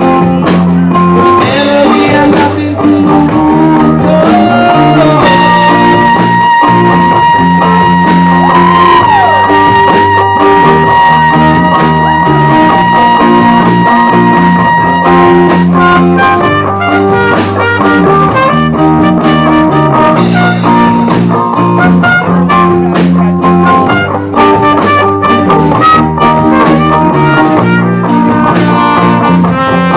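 Rock band playing an instrumental passage: electric guitar, bass guitar, drum kit and a Roland VR-730 combo organ keyboard. A single high note is held for about ten seconds, bending once partway through.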